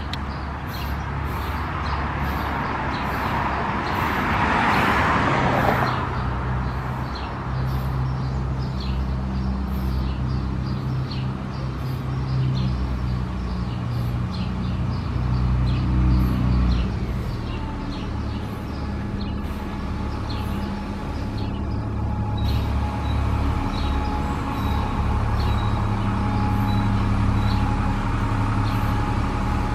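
Low, steady diesel engine hum of a New Flyer D40LF city transit bus with a Cummins ISC engine, drawing near. Another vehicle passes about four to six seconds in.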